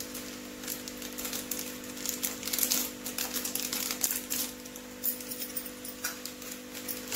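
Noodles and vegetables crackling and ticking irregularly in a hot frying pan on a lit gas burner, over a steady low hum.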